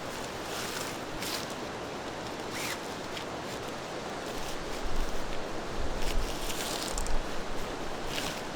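Steady rush of a valley stream, with several short rustling swishes over it and low wind buffeting on the microphone in the middle.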